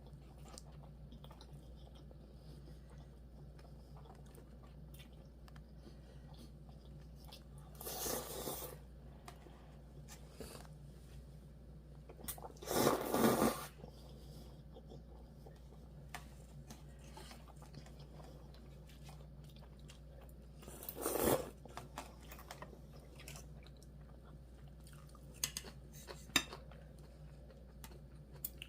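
A person chewing and biting gimbap and cup ramen close to the microphone, with three louder noisy bursts of eating sound about 8, 13 and 21 seconds in and a few small clicks near the end. A low steady hum runs underneath.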